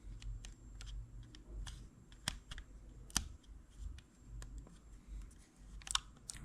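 Faint, scattered clicks and taps of a compact digital camera being handled and its buttons pressed, over a low room hum.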